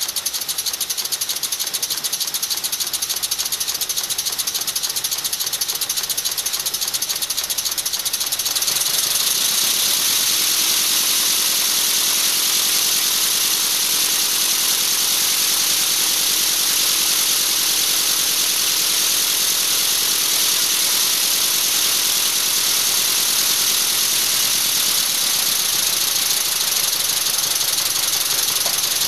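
LEGO pneumatic (LPE) V8 engine running on compressed air: a strong hiss of air with a fast, steady clatter of pistons and valves. It grows a little louder about nine seconds in.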